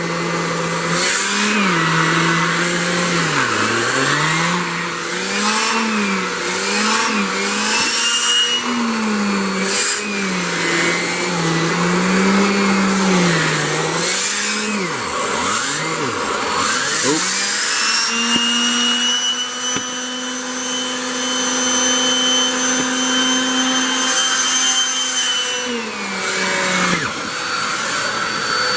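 Hoover WindTunnel 3 Pro Pet upright vacuum running loud, its motor pitch wavering up and down again and again. About two-thirds of the way through, the pitch rises and holds steady and higher with a whine for several seconds, then falls back.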